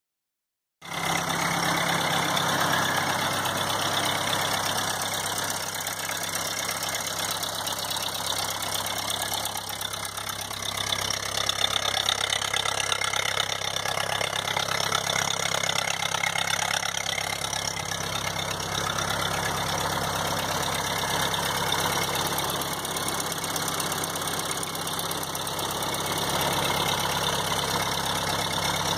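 Ford 8N tractor's four-cylinder flathead gasoline engine running steadily at idle just after a cold start at −21 °C with the choke out. The sound cuts in abruptly about a second in.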